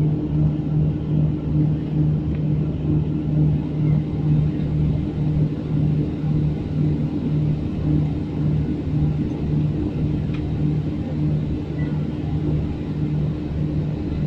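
Steady cabin drone inside a Boeing 737-800 airliner on the ground: a low hum from the jet's engines and air systems that pulses gently, over a haze of air noise.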